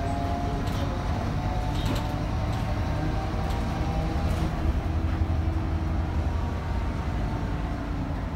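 City bus on the move, heard from inside the cabin near the front: a steady low engine and road drone with a faint whine above it, and a few light clicks.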